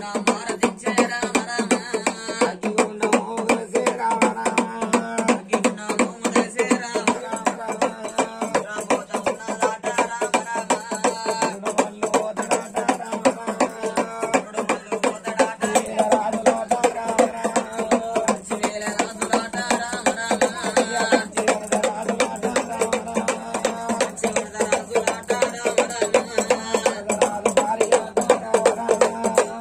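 Music: singing over fast, steady drumming and percussion.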